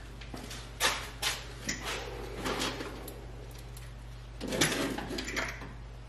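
Sheet-metal stovepipe for an oil boiler's flue being handled and fitted together: a few sharp knocks and clanks, then a longer scraping clatter about four and a half seconds in, over a steady low hum.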